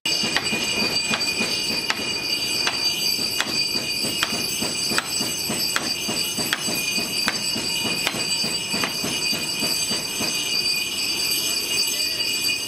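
A run of sharp knocks, about one every three-quarters of a second, as the end of an axe's wooden handle is struck down on a wooden block to drive the handle into the forged head. Under them runs the steady high whine of a bench grinder grinding metal.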